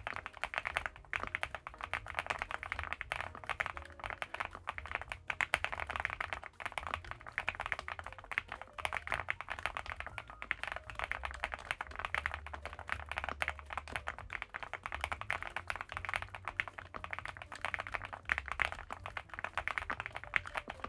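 Continuous fast typing on an Infi75 gasket-mounted, foam-filled mechanical keyboard: a dense run of muted, rounded keystroke clacks, the "kotokoto" typing sound.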